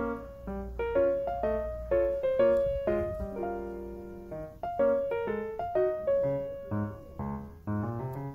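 Background music: a light piano tune of single struck notes, with a held chord about three seconds in.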